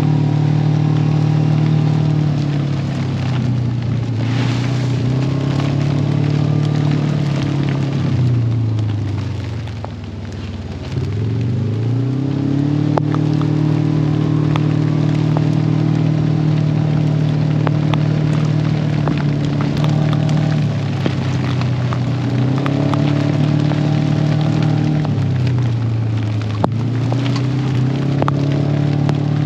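Side-by-side UTV engine running as it drives a wet dirt trail, its pitch falling and rising with the throttle; it eases off about ten seconds in and picks up again a second later. Rain falls throughout, and a single click comes near the end.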